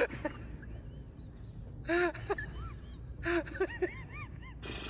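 An animal giving short, pitched calls that rise and fall, in two quick runs of several calls each, with a loud call right at the start.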